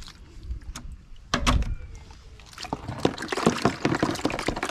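Water splashing in a plastic tub as cooked blue swimmer crabs are washed out and broken apart by hand. There is a heavier splash about a second and a half in, then from about halfway a continuous run of splashing and crackling.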